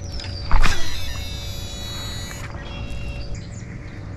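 A cast with a baitcasting rod and reel: a sharp swish about half a second in, then the reel's spool whirring with a high whine as line pays out for about two seconds, stopping abruptly.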